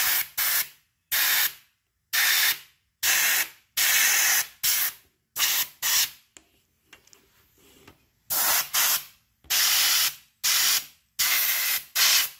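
Short bursts of compressed air from an air compressor's blow gun, blowing dust out of graphics card fans. There are about fifteen blasts, each under a second long, with a pause of about two seconds in the middle.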